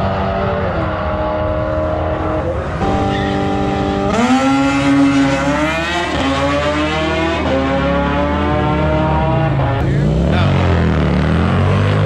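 Drag-racing motorcycle engine at full throttle, its note climbing in steps as it shifts up through the gears, then dropping about ten seconds in as it backs off.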